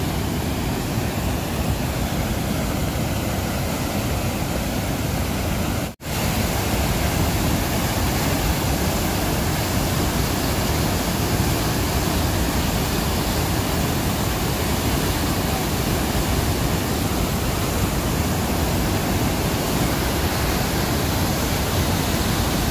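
Whitewater river rapids and waterfall: a loud, steady rush of churning water, which cuts out for a moment about six seconds in.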